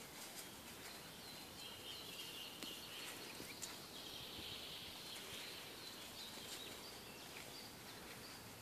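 Faint songbird song in woodland: many short chirps and small pitch glides, over a steady outdoor background hiss, with a few faint clicks.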